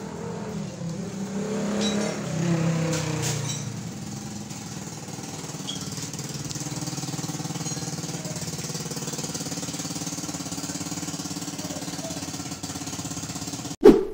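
An engine running steadily with a fast even pulse, its pitch shifting and a little louder for the first few seconds before it settles into a steady idle.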